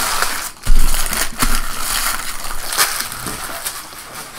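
Crinkly packaging being crumpled and crushed by hand, with a loud thump just under a second in and a smaller knock about half a second later; it tapers off toward the end.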